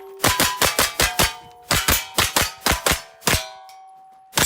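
Rapid gunfire on steel targets: about fifteen shots in quick strings, each answered by the clang of a hit steel plate ringing briefly. The shooting stops about three and a half seconds in, and one last shot and clang fall at the very end.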